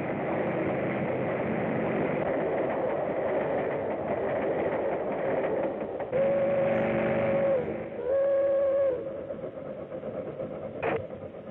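Steam train running along the track, followed by two steady blasts of its whistle, the first longer than the second. A single sharp click comes near the end.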